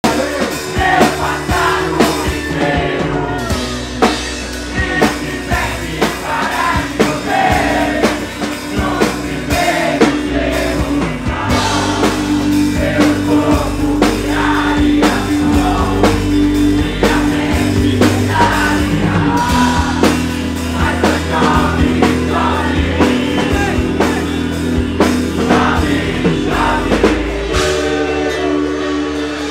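Rock song with a male-or-female lead vocal over a drum kit and bass guitar, with a steady beat; the bass drops out near the end.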